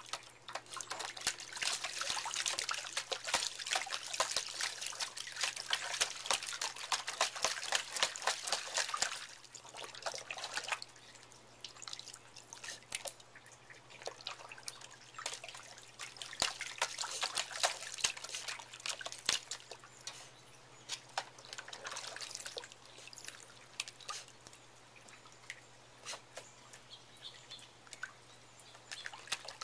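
Airedale terrier puppy pawing and splashing water in a plastic tub, with a long run of busy splashing for the first nine seconds or so, then quieter sloshes and drips and another burst of splashing past the middle.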